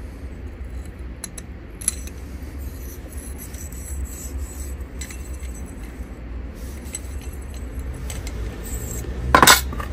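Light metal clinks and scraping as a steel tube fitting is handled and slid along a shock-absorber shaft, with a sharper metallic clatter near the end, over a steady low hum.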